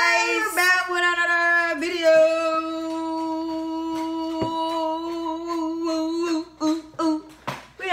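Voices holding one long sung 'ooh' note, slightly wavering in pitch, with short sharp hits sounding over it; the note breaks off about six seconds in and a few short bursts of sound follow.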